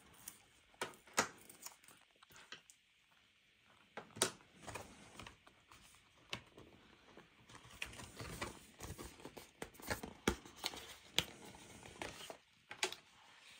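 Unboxing handling noise: packaging rustling and crinkling, with scattered sharp clicks and taps at irregular intervals.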